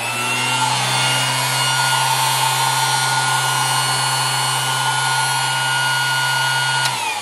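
12-volt Warfield Electric DC motor driving the tractor's add-on hydraulic pump, running steadily with a low hum and a high whine; it is a little loud. Near the end it is switched off and its whine falls away as it spins down.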